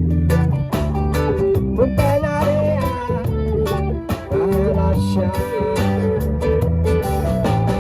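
Live reggae band playing an instrumental passage: bass and drums keep a steady groove under guitar, while sustained melodic lines carry over the top, fitting the band's sax and trombone.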